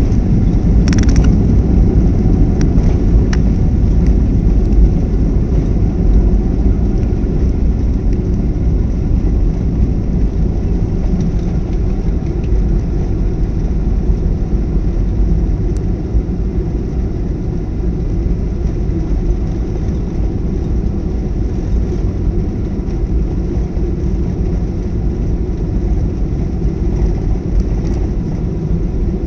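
Boeing airliner rolling out on the runway after touchdown, heard from inside the cabin: a loud, steady low rumble of engines and wheels that slowly eases as the plane slows. A few light rattles come in the first few seconds.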